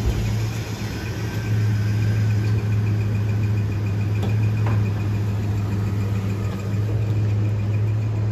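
A road vehicle's engine idling, a steady low hum that grows a little louder about a second and a half in.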